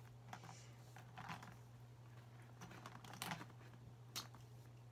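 Faint scattered clicks and rustles of felt-tip markers being picked out of a cup of markers and handled, over a steady low hum.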